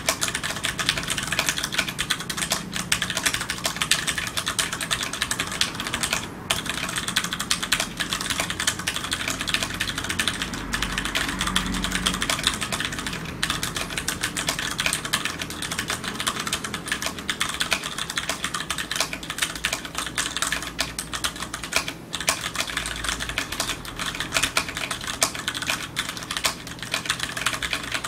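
Steady fast typing on a TEX Beetle mechanical keyboard with tactile Cherry MX Brown switches: a dense stream of key clacks, with brief pauses about six and twenty-two seconds in.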